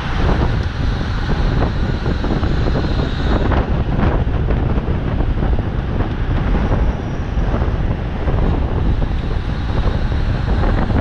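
Wind buffeting the microphone of a camera carried on a bicycle at racing speed: a loud, steady rush, heaviest in the low rumble.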